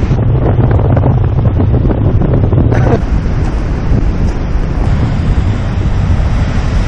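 Strong wind buffeting the camera microphone, with heavy surf breaking on rocks behind it. The sound changes abruptly about three seconds in, with more hiss from the surf after the change.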